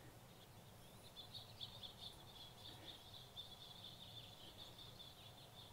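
Near silence: faint, high, quick bird chirping that starts about a second in, over a low steady background hum.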